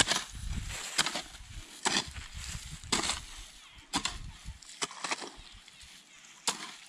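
A spade striking and cutting into soil in repeated digging strokes, roughly one a second.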